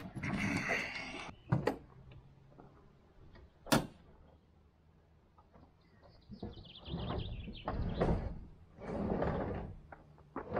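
Handling noises: a few sharp knocks, the loudest a little under four seconds in, then a squeak sliding down in pitch followed by scraping.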